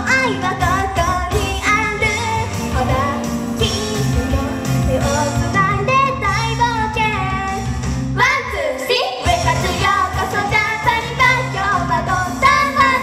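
Two young female idol singers singing live into handheld microphones over an upbeat J-pop backing track, heard through the hall's PA. The bass and beat drop out for about a second near the middle, then come back.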